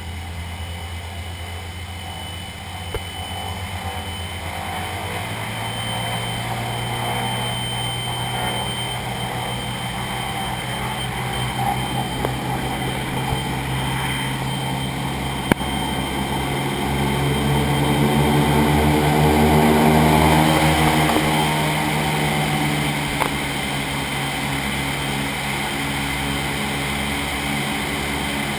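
The four radial engines of a B-29 Superfortress heard inside the cabin, running in a steady drone that steps up in pitch about five seconds in as power comes up, then grows louder to a peak about twenty seconds in before easing slightly.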